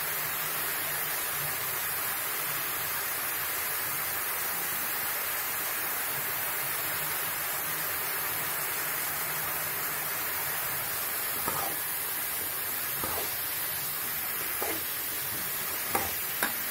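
Chopped radish sizzling in hot oil in a metal kadai, a steady hiss. In the second half come a few light clicks as a slotted metal spoon starts stirring it.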